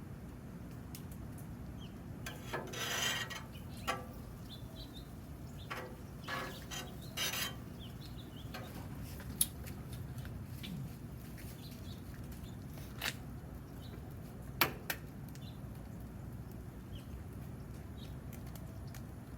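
A low steady rumble from the propane burners of a Blackstone griddle running on high while its oil coat burns off during seasoning. Scattered sharp clicks and a few short scrapes sound over it.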